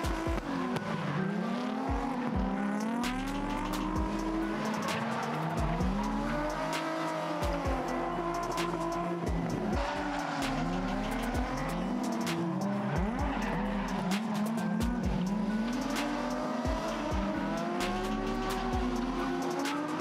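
Several drift cars, Nissan 350Zs among them, revving hard and rising and falling in pitch, with tyres squealing as they slide sideways in tandem. Background music with a steady bass line runs underneath.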